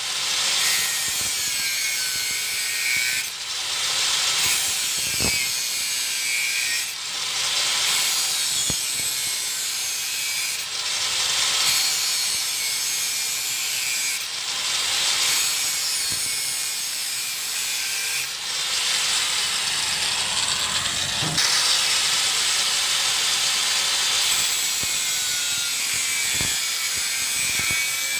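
Angle grinder with a thin 125 mm, 0.8 mm-thick Type 42 cut-off wheel cutting through steel: a loud, high-pitched screech of the abrasive wheel on metal. The sound dips briefly every three to four seconds as the cuts go on.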